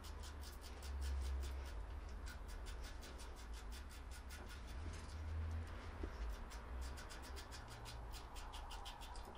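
Faint rapid ticking and sticky smacking as fingers pack lithium soap grease into a tapered roller bearing, turning it in the hand, heard in two runs.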